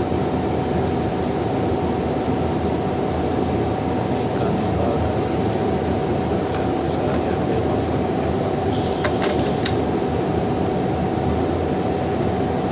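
Steady mechanical hum and hiss with a constant high tone, broken by a few sharp clicks about nine seconds in.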